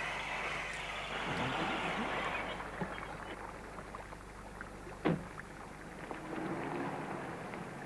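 Film soundtrack of a car pulling up: a steady rush of vehicle noise, then a single sharp car-door thump about five seconds in.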